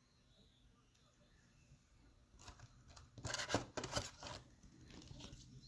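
Crisp rustling and crackling of trading-card packaging being handled on the table, in a short cluster starting a little over two seconds in.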